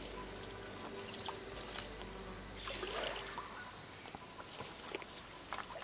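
Rainforest insects droning at one steady high pitch, over faint trickling water with scattered light knocks from the canoe. A short rising squeak sounds about three seconds in.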